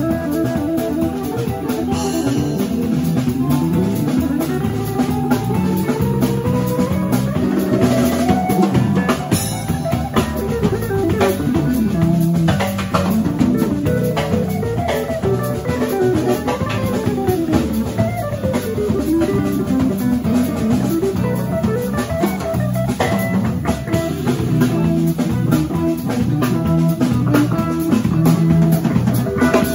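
Live instrumental band music: electric guitar playing quick melodic runs that climb and fall, over drum kit and electric bass.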